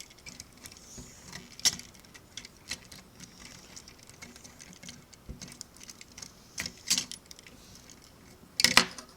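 Light clicks and rattles of plastic Lego pieces being handled and moved, a few sharper clicks spread out, with a quick cluster of clicks near the end.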